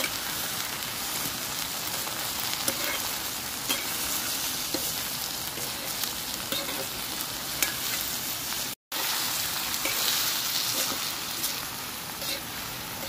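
Chopped hill ridge gourd and other vegetables sizzling in hot oil in a kadhai while being stirred continuously, the metal ladle scraping and clicking against the pan. The sound drops out for an instant about nine seconds in.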